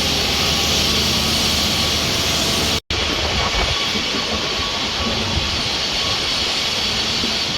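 Strong wind rushing through an open, unfinished high-rise floor and buffeting the microphone: a loud, steady rush of noise. It cuts out completely for an instant about three seconds in.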